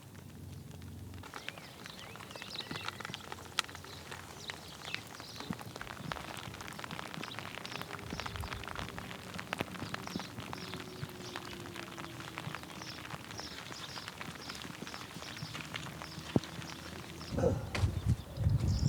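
Footsteps crunching and clicking irregularly on a stony trail, with a loud low rumble near the end.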